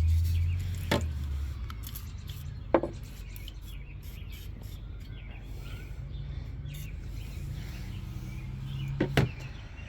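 A few sharp clicks and taps of hand work on the lawnmower's choke parts, over a steady low hum, with birds chirping faintly.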